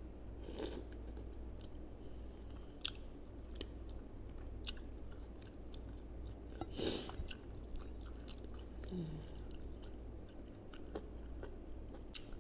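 Close-miked chewing of bakso meatballs with crunchy cartilage: wet mouth clicks and small crunches scattered throughout, with two louder noisy mouth sounds, one about a second in and one near seven seconds.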